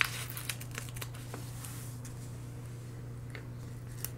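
A sheet of planner stickers being handled and a sticker peeled off and pressed onto a paper planner page: a sharp crisp tap at the start, then light paper crinkling and ticks that fade, with one more small tick near the end, over a steady low hum.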